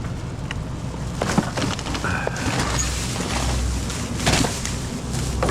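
Vehicle engine running at idle, a steady low rumble, with several short knocks and clicks over it.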